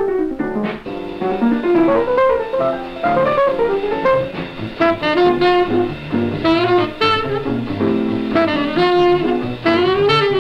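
Instrumental background music with a busy melody line of quickly changing notes over a rhythm accompaniment.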